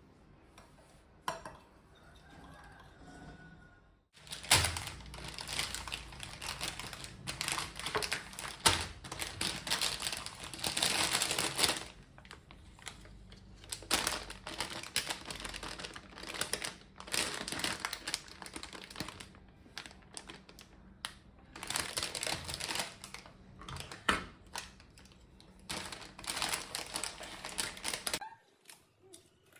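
Food being prepared in a kitchen: runs of rapid clicks and taps of utensils with some rustling, starting about four seconds in and stopping abruptly near the end.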